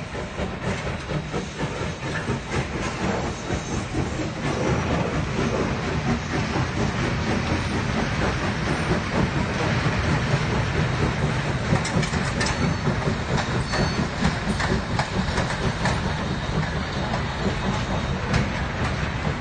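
0-6-0 steam locomotive and its passenger cars crossing a steel truss bridge: a continuous rumble with clattering wheels. It grows louder a few seconds in as the engine comes onto the bridge, then holds steady as the cars roll across.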